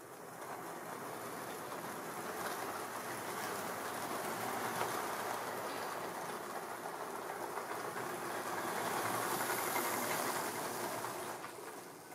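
Tri-ang OO-gauge model train running along the track close by: a steady whirring rattle of wheels on the rails that grows louder, peaks about nine or ten seconds in, then falls away near the end.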